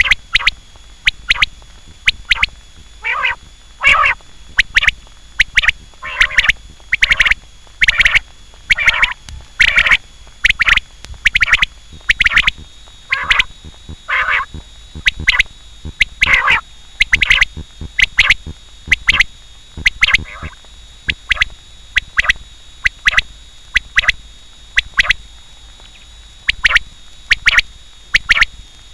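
Quail calling over and over: short, sharp notes, often in quick pairs or small groups, repeated one to two times a second.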